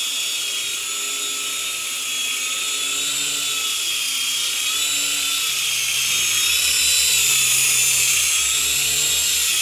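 JJRC SY003B Captor coaxial micro RC helicopter in flight: the high whine of its small electric motors and the whir of its twin rotors, the pitch wavering as the throttle changes. It grows a little louder in the second half.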